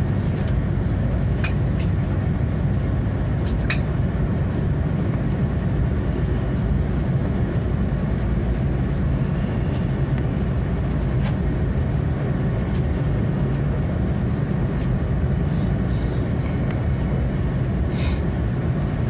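Steady low rumble inside an Airbus A330-300's cabin on the ground just after landing, with a few light clicks and rattles scattered through it.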